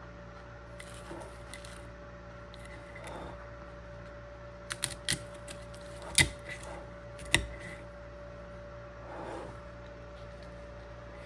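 A few short, sharp knocks and clicks, the loudest about six and seven seconds in, over a steady electrical hum.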